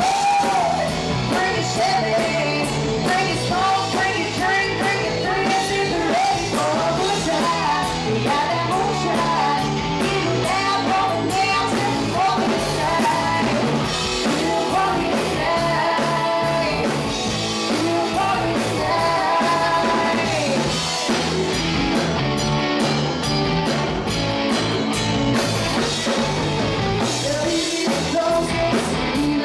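Live rock band playing: women singing over electric guitar, bass guitar and a drum kit.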